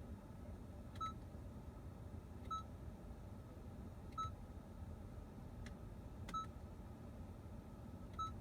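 Five short electronic beeps, all at the same pitch, one every one and a half to two seconds at an uneven pace, with a couple of faint clicks between them.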